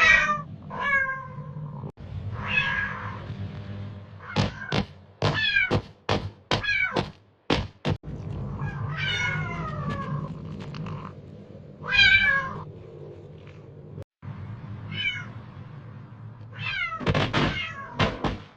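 A cat meowing again and again, each call falling in pitch, with a quick run of short meows in the middle, over a steady low hum.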